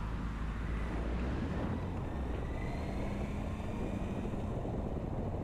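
Motorcycle engine running as the bike rides along a wet road, with steady road and wind noise.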